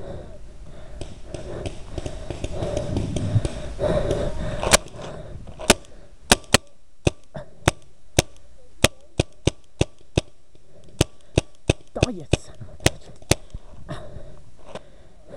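Paintball markers firing a string of about twenty sharp single pops at uneven spacing, sometimes two or three in quick succession. Before the first shot, about five seconds in, there are a few seconds of rustling, jostling movement noise as the player runs to cover.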